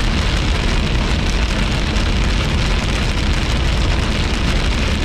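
Heavy rain pelting a moving car's windshield and roof, heard from inside the cabin as a steady, loud hiss over the low rumble of the road.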